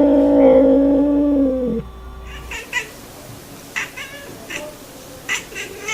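A cat's long, drawn-out yowl on one steady pitch that ends about two seconds in, followed by several short, sharp sounds.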